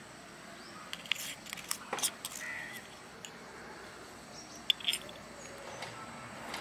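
A small steel spoon clinking and scraping against a clay pot as dry spices and garlic-ginger paste are stirred together, in scattered sharp clicks, with a pair of louder clicks near the end. A bird calls briefly about two and a half seconds in.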